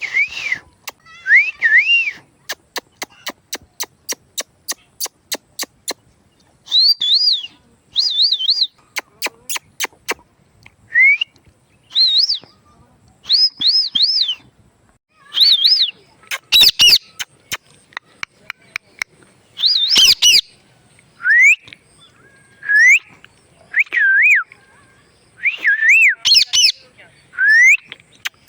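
A pet parrot whistling and chirping: short whistled notes that slide up and down, in groups, with runs of sharp clicks between them.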